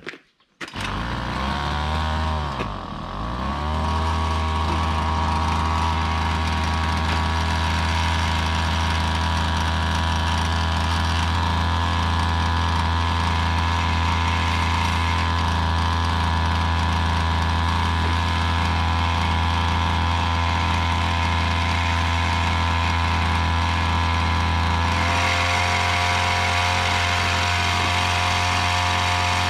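The small engine of a Koshin EP-10P engine-powered sprayer catches and starts running, briefly slowing and picking back up a couple of seconds in, then runs steadily. Near the end its note shifts and a hiss joins in.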